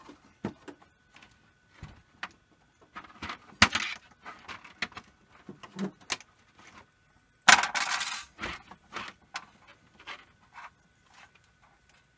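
Small clicks, taps and rustles of a soldering iron handpiece and its cable being handled and unscrewed while a dead iron is checked for a faulty wire or connector, with a louder scraping rustle about seven and a half seconds in. A faint steady high whine sounds underneath.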